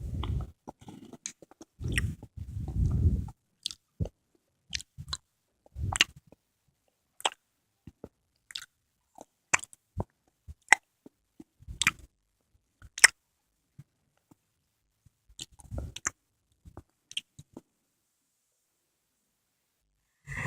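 Close-miked mouth sounds of eating konjac jelly: wet chewing with many sharp, irregular smacks. There are several longer, lower squelching sounds in between.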